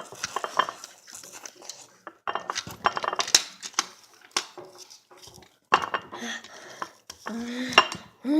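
A spoon clinking and scraping irregularly in a container of homemade ice cream as it is eaten.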